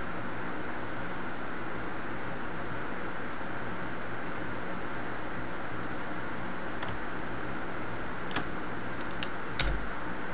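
Faint, scattered clicks of a computer keyboard and mouse over a steady hiss, with a few sharper clicks and a soft thump near the end.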